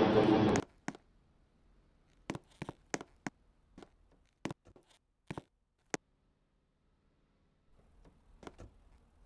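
A loud sound cuts off abruptly within the first second. After it, faint, irregular clicks and knocks come singly and in small clusters.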